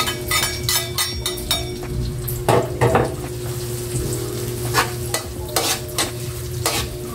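Chopped garlic sizzling in hot oil in an aluminium wok, the first stage of sautéing it to brown. A metal spatula stirs it with repeated scrapes and knocks against the wok.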